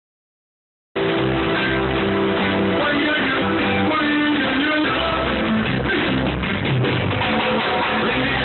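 Live reggae band playing, with guitar, bass and drums, cutting in suddenly about a second in after silence.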